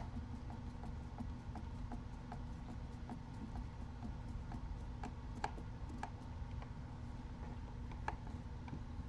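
Light, somewhat uneven clicks about three a second, a couple louder near the middle and end, from a hand screwdriver driving a self-tapping screw into the TT-02's plastic chassis parts, over a steady low room hum.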